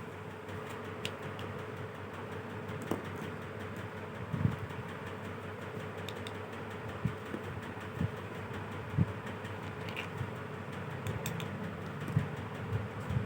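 Hard plastic animal figures handled and set down on a surface: a handful of irregular light knocks and clicks over a steady fan-like hum.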